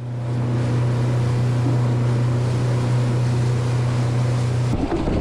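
Boat engine running with a steady, unchanging drone over wash and wind noise. It cuts off abruptly just before the end, leaving gusty wind buffeting the microphone.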